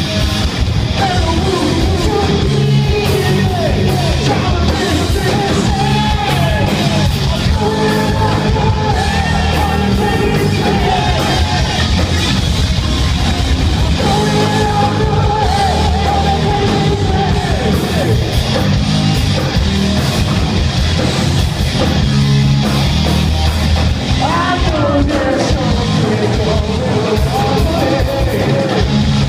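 Live rock band playing loud, with electric guitars, bass and drums, and a male lead singer singing and yelling over them in long held, sliding notes.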